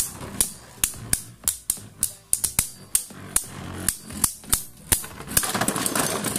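Two Beyblade Burst spinning tops clashing in a plastic stadium: a run of sharp, irregular clacks as they strike each other and the stadium wall, then a spell of grinding scrapes near the end as one top, the B-161 Glide Ragnaruk, bursts apart.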